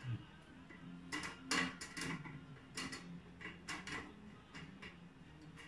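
Irregular light clicks and taps of galvanized steel panel and frame parts of an IKEA Hyllis shelf being handled and fitted together, the strongest cluster about a second and a half in, over a low steady hum.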